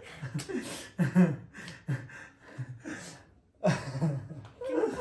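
Voices at low level: short stretches of quiet talk mixed with breathy gasps, broken by a brief pause a little past three seconds in.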